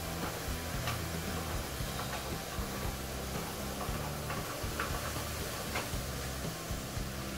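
Hand-cranked spiralizer cutting zucchini into noodles, with scattered clicks and ticks from the turning crank. Background music with a low bass line plays throughout.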